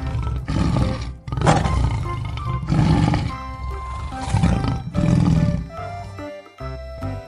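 A tiger roaring and growling in a string of about five rough roars over light background music.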